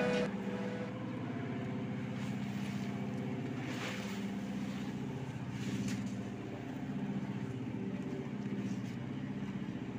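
A passenger ship's diesel engine running steadily: a low, even drone with a fine pulsing beat.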